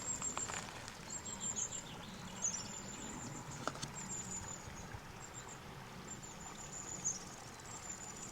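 Small songbirds giving short, high, thin calls about once a second, a few of them sliding down in pitch, over the steady rush of a river. A few soft footsteps can be heard on the path.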